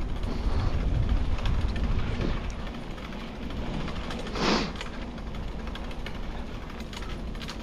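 Wind buffeting the microphone on the move, a steady low rumble, with one short rushing burst about four and a half seconds in.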